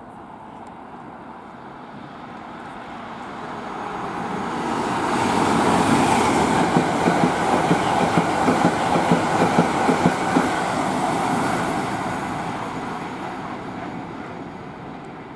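High-speed passenger train passing at speed. The rumble builds, peaks with a run of rhythmic clacks from the wheels, about three a second, then fades away.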